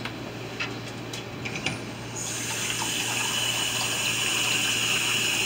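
Kitchen faucet running water into a measuring cup, turned on about two seconds in, after a few light knocks of handling.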